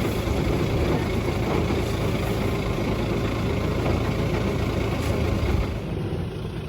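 High-pressure jetting truck running steadily with its engine and pump working, a loud, even mechanical sound that drops in level about six seconds in.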